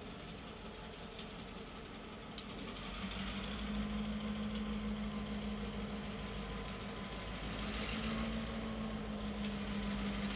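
Diesel freight locomotive approaching, its engine drone growing louder from about three seconds in, with a steady low hum and rumble.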